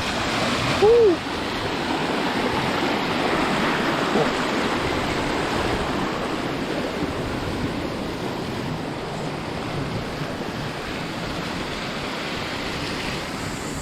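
Steady rushing of the Mersey River's flowing water. A short "woo" shout comes about a second in.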